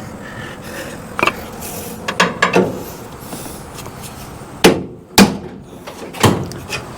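Hammer blows on the steel frame flange of a 1966 Ford Ranchero, straightening curb damage. About seven strikes come at uneven spacing, lighter ones first and the three heaviest in the second half.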